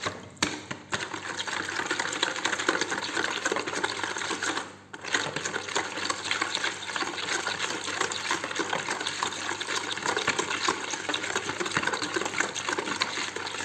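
A thin liquid mixture of milk, sugar, oil, yeast and flavourings being beaten briskly by hand in a bowl, a rapid steady clatter and slosh. It breaks off briefly just before five seconds in.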